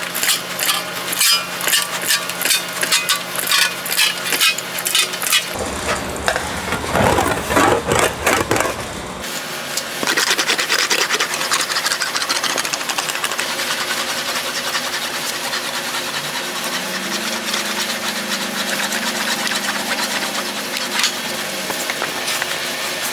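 Hand-lever shrinker clamping the edge of a steel sheet in repeated strokes, a sharp clack about twice a second, to shrink the fender panel's edge. This gives way after about five seconds to a long stretch of steady rubbing and scraping of sheet metal being worked.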